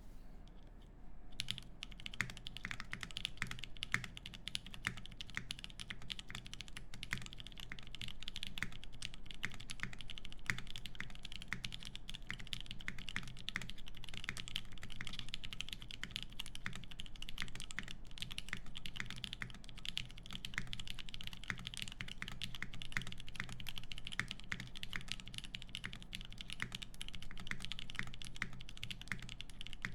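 Steady, fast typing on an Emery65 mechanical keyboard with lubed Drop Holy Panda tactile switches in an aluminium plate and GMK keycaps, a dense run of keystroke clacks that starts about a second and a half in.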